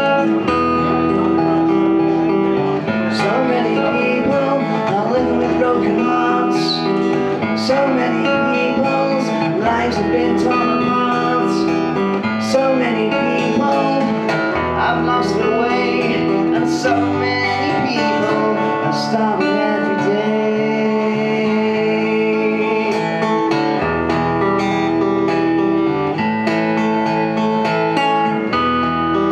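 Acoustic guitar strummed in a steady run of chords that change every second or two.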